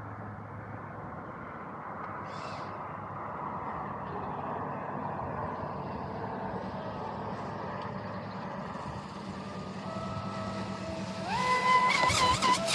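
Pro Boat Sonicwake V2 RC boat running on the water with its brushless electric motor: a steady rushing hiss and faint motor whine at first, then about eleven seconds in the whine jumps up in pitch and gets much louder, wavering as it goes.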